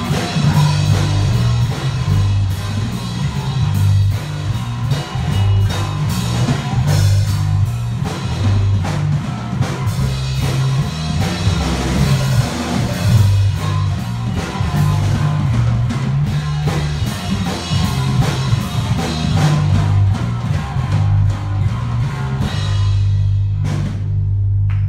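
Electric bass guitar and drum kit playing a loud improvised punk-jazz jam, the bass moving between low notes under busy drumming. Near the end the drums stop and a single bass note rings on.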